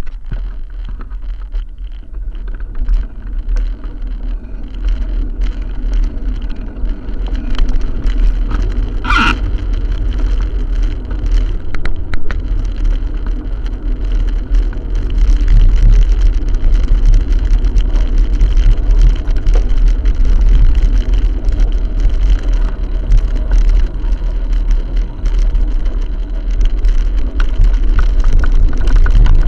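Heavy wind buffeting and low road rumble on a bicycle-mounted camera's microphone while riding in city traffic, with scattered small clicks and rattles. A brief high squeal sounds about nine seconds in.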